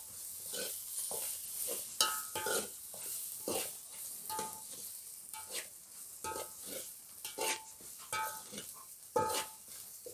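A metal ladle scraping and knocking around a metal pot about once a second, with brief ringing clinks. Under it, a chili-and-coconut masala sizzles steadily as it roasts in hot oil for a tempering.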